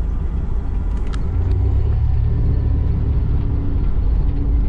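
A GMC Safari all-wheel-drive van on the move, heard from inside the cab: a steady low engine-and-road rumble, with a steady droning hum joining in after about a second and a half.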